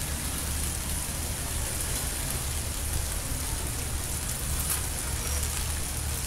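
Rain falling steadily, with a constant low hum underneath.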